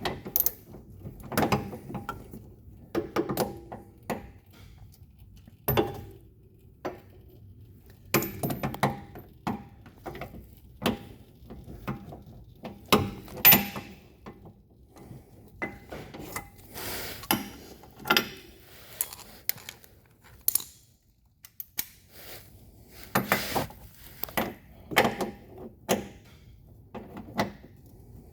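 Hand tools clinking and knocking irregularly against metal: a socket and extension being fitted and worked on a hard-to-reach drain or fill plug.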